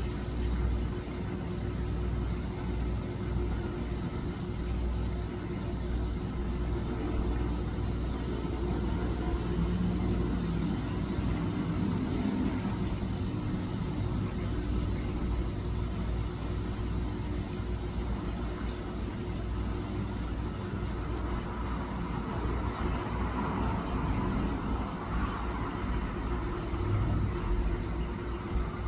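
Steady low rumble of outdoor background noise, with a constant low hum running under it.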